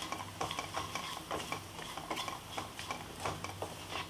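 Wooden spatula stirring and scraping through a spiced onion, potato and peanut mixture in a nonstick kadhai, with irregular knocks against the pan. Under it runs a faint sizzle of the mixture frying.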